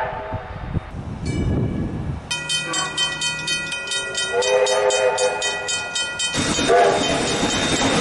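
The end of a steam locomotive's whistle. Then a level-crossing warning bell rings at about four strokes a second, while a train horn sounds for about two seconds over it. Near the end there is a rush of noise with another short horn blast.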